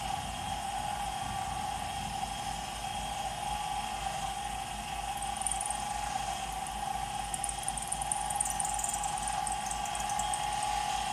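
Smithy 1220 LTD combo mill's spindle running with a steady whine while a 3/16-inch end mill cuts metal. High scratchy cutting noise comes in about halfway through and again for a couple of seconds later on.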